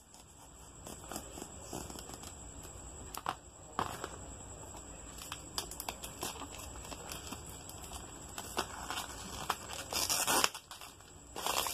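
Smartphone box packaging being opened by hand: cardboard and paper rustling and tearing, with scattered small clicks and taps and a few louder bursts near the end.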